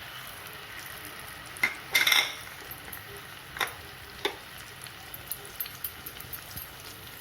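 Onion, garlic, ginger and green chilli paste sizzling in hot oil in a kadai, a steady frying hiss. A spatula knocks and clinks against the pan a few times, loudest about two seconds in, then lighter ticks as it stirs.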